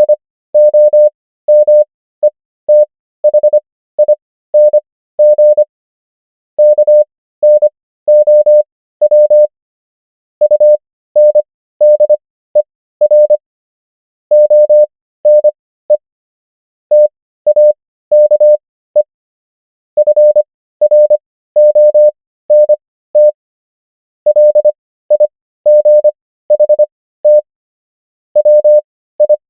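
Morse code practice tone: a single steady beep keyed on and off in short dots and longer dashes, spelling English words. Characters are sent at 25 words per minute, with Farnsworth spacing stretching the gaps between characters and words to an overall 15 words per minute.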